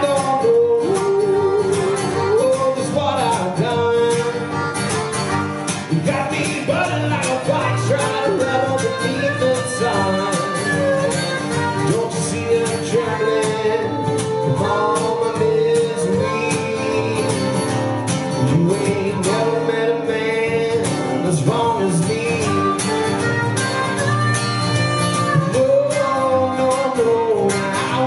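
Harmonica playing a wavering, bending lead line over acoustic guitar accompaniment in a country-bluegrass style.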